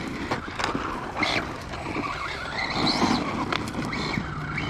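Radio-controlled car running on a 3D-printed PETG spur gear: short rising whines from the drivetrain, with tyre noise and a few sharp clicks.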